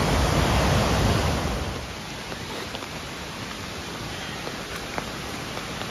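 Swollen, muddy waterfall in flood, a loud rush of water with a heavy low rumble. About two seconds in it falls off to a quieter, steady rush of water.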